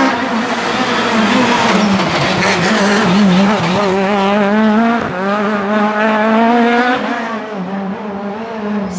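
Rally Kit Car engine at high revs under full acceleration. The pitch climbs, drops sharply about five seconds in at a gear change, climbs again, then falls away about seven seconds in.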